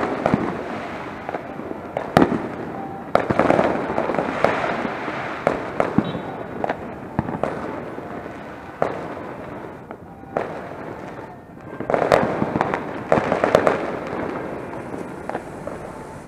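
Fireworks and firecrackers going off: sharp bangs at irregular intervals, with thicker crackling volleys about three to four seconds in and again about twelve to fourteen seconds in.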